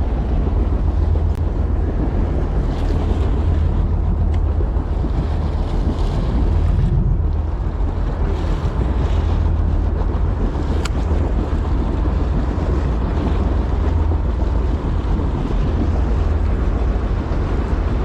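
Wind rumbling on the microphone over the steady wash of water around a fishing boat, with a few faint ticks.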